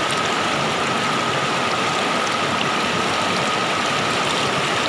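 Swift, shallow river water rushing and churning over rocks in a steady wash of noise, with a thin, steady high tone running through it.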